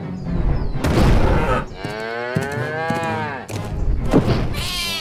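Cartoon cow mooing: one long moo that rises and then falls in pitch, after a few heavy thuds in the first second or so. A shorter call, falling in pitch, comes near the end.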